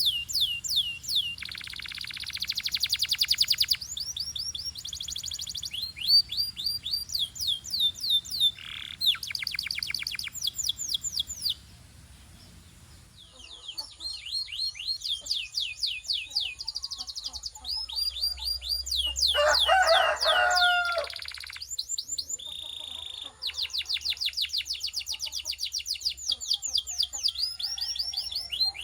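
Canary song: rapid runs of repeated high notes, rolled into trills, phrase after phrase with a short pause near the middle. A louder, lower-pitched phrase comes about two-thirds of the way through.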